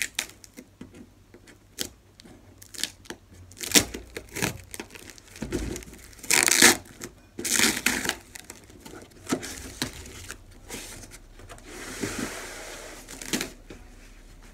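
Long cardboard shipping box being handled and opened: a string of scrapes, knocks and crinkling cardboard, loudest about four seconds in and again six to eight seconds in. Near the end comes a longer soft rustle as the leafy plant inside slides out against the cardboard.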